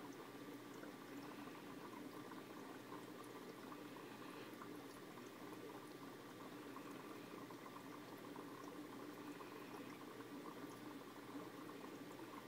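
Faint, steady bubbling and trickling of aquarium water in a small fish tank, with scattered tiny ticks.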